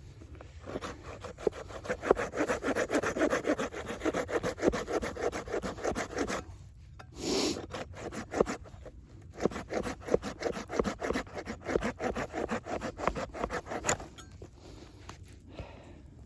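A saw cutting through wood in quick back-and-forth strokes, about five a second. The sawing stops briefly about halfway through, then starts again and tapers off near the end.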